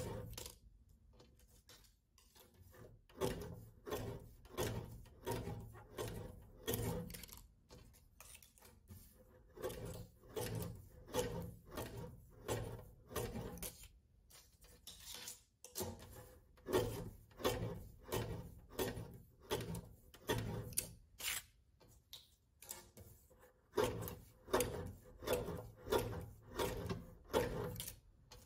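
Repeated short knocks and rubbing from small objects being handled and set down, about one or two a second, with a few brief pauses.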